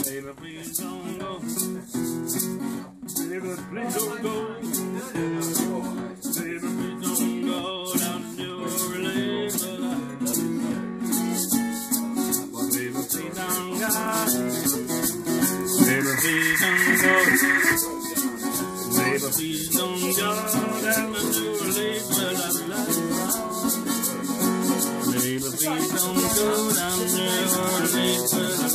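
Small-bodied acoustic guitar strummed in a driving blues rhythm without singing, with a shaker keeping a fast, even beat that becomes steadier and denser about a third of the way in. A high held note rises above the music for about two seconds near the middle.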